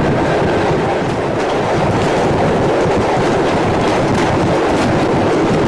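Steam-hauled passenger train running, heard from an open coach window: a steady rumble of the coaches, with scattered clicks of wheels over the rails.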